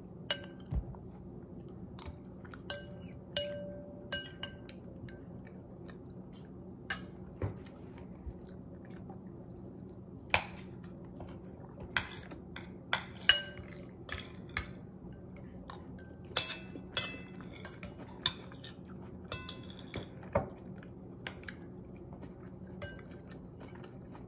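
Metal cutlery clinking and scraping against a ceramic plate and bowl while eating: irregular sharp clinks, some ringing briefly, over a low steady hum.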